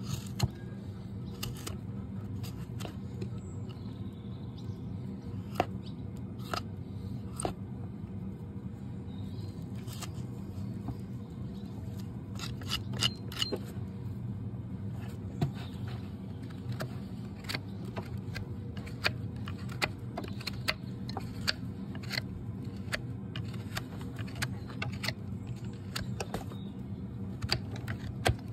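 Hoof knife paring the horn of a Shire horse's hoof: irregular crisp clicks and scrapes as the blade cuts, coming thicker in the second half, over a steady low hum.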